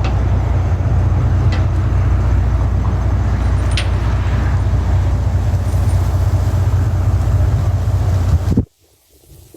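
A large engine running steadily with a low rumble and a few faint clicks. The sound cuts off abruptly near the end.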